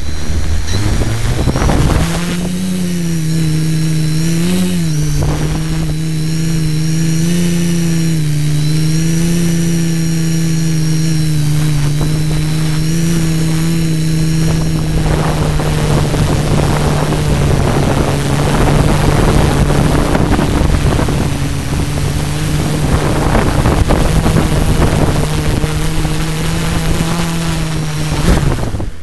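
Drone motors and propellers, heard close up from the drone's own camera. They spin up over about the first two seconds as it takes off, hold a loud steady buzz with slight wavers through the flight, and wind down near the end as it lands.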